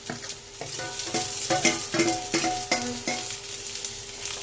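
A spatula knocking and scraping against a metal pan while frying onions are stirred, the knocks ringing briefly, about two to three a second, over the sizzle of hot oil.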